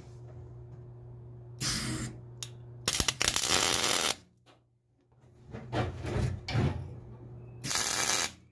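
Wire-feed welder laying short tack welds on steel plate: three bursts of crackling arc, about half a second, a second, and half a second long, over a steady low hum.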